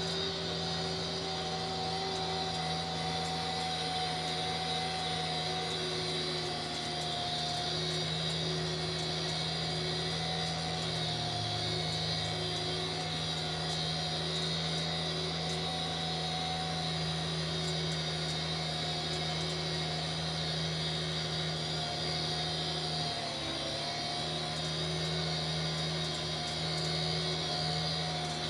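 Tractor engine running steadily while driving a grass tedder across the field, a constant drone with a steady whine over it; the note sags briefly about 23 seconds in, then recovers.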